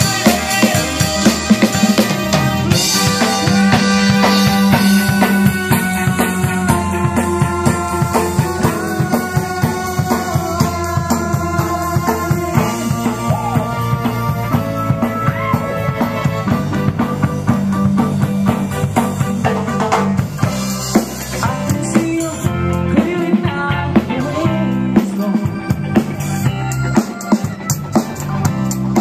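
A live rock band playing, with a drum kit keeping a steady beat under guitar.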